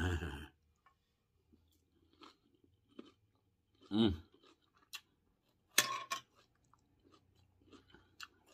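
Close-up chewing of a forkful of Caesar salad, with small wet clicks and crunches of the lettuce, a short hum about four seconds in, and a sharper crunch just before six seconds.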